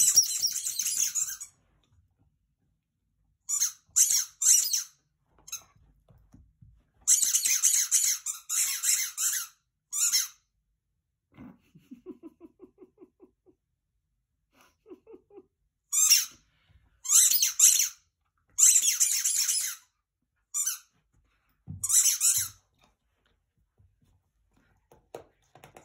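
Dog chewing a squeaky toy, setting off runs of shrill squeaks, some short, some a few seconds long, with quiet gaps between them.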